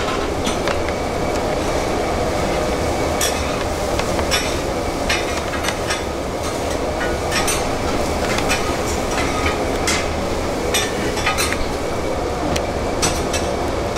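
Busy kitchen clatter: a steady background rumble with many short clicks and clinks scattered throughout.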